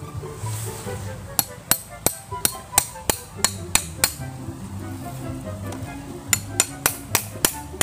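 Machete struck against a bamboo pole to drive a nail into it: a quick run of about nine sharp taps, three a second, a pause of about two seconds, then about six more.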